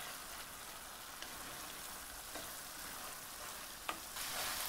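Arborio rice and leeks sizzling faintly in an enameled cast-iron pan as a spatula stirs them, with a few light clicks. The wine has nearly cooked into the rice, and it is being sautéed before the water goes in.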